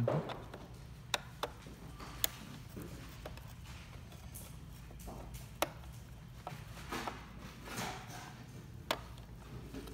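Sharp, isolated clicks and taps, about five in all, of a screwdriver and fingers handling an opened projector's plastic case and circuit board, with a soft rustle near the end over a low steady hum.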